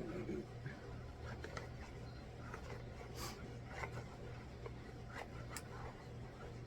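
Faint scattered clicks, rubs and rustles of small objects being handled, over a steady low hum.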